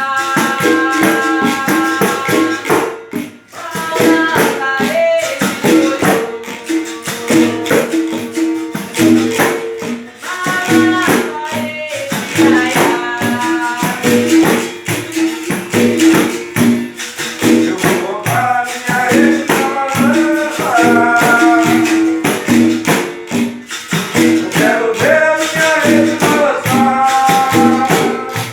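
Capoeira Angola music: berimbau with its caxixi rattle and a pandeiro keeping a steady rhythm, with a voice singing a cantiga over it.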